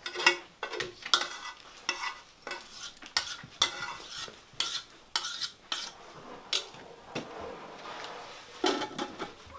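A spoon scraping and knocking against a metal cooking pot as food is dished out into bowls: irregular sharp scrapes and clinks, one or two a second, some with a short metallic ring.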